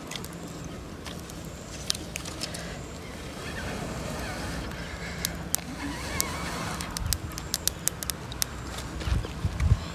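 Small campfire of dry twigs crackling, with a run of sharp snaps and clicks as sticks are pushed in and shifted. A steady low rumble lies underneath and swells near the end.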